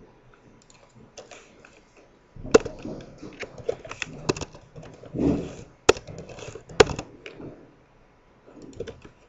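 Typing on a computer keyboard: irregular key clicks that begin a couple of seconds in, with two sharper, louder clacks in the middle and a few faint taps near the end.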